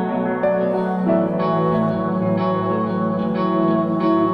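Instrumental background music with held notes that change about once a second.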